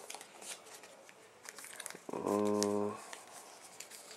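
Light rustling and small clicks of cardboard and paper as a phone box's insert and paper documentation packet are handled and lifted out. About two seconds in, a man gives a short steady hum, the loudest sound.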